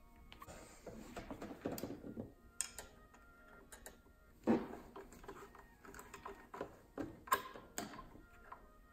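Faint clicks and ticks of a flathead screwdriver retightening a hose clamp on an intake inlet, with a soft rustle of handling in the first two seconds and a louder knock about four and a half seconds in.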